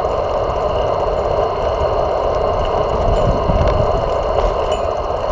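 Steady rumble of riding a bicycle along a city street: wind and road noise on a bike-mounted camera, with traffic around.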